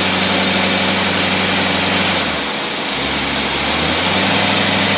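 Engine running on a Rochester Quadrajet four-barrel carburetor, holding a steady speed; it dips briefly about halfway through and picks back up.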